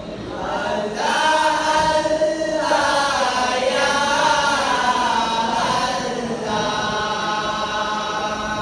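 Male voices chanting an Arabic devotional melody in long, drawn-out notes that bend and glide in pitch, opening an arabana muttu song.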